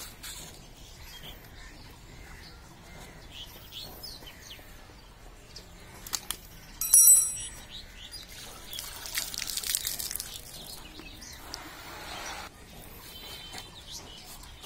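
Small birds chirping in the background while a goat's hide is cut and pulled from the hanging carcass. About seven seconds in comes a brief, sharp high-pitched sound, the loudest moment. A few seconds of rasping noise follow around ten seconds in.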